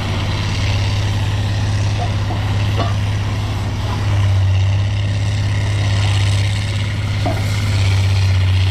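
Pickup truck engine running steadily, a low rumble that swells slightly now and then.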